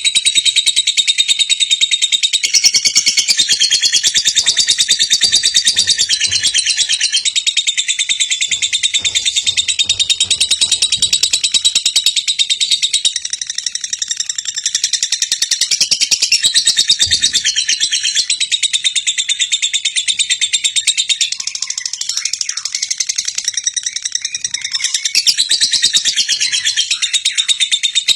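Lovebird ngekek: a rapid, high chattering trill kept up without a break, the long-running song (ngekek panjang) that contest lovebirds are prized for.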